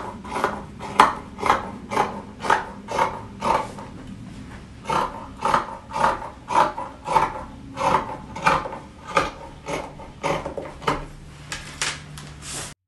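Scissors snipping through t-shirt fabric, cutting a strip in a steady run of snips about two a second.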